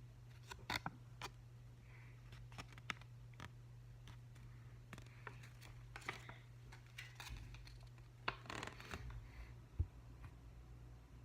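Handling noise: scattered small clicks, scratches and short rustles as paper and small plastic pen parts are handled, over a steady low hum. The sharpest click comes near the end.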